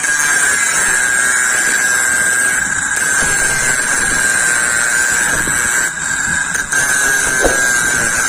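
Homemade electric drill/angle grinder motor running steadily at speed, a constant high whine with a slight wavering in pitch.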